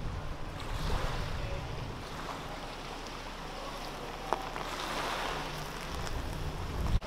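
SUV driving in slowly over gravel and grass and stopping, its engine running low, with wind blowing on the microphone.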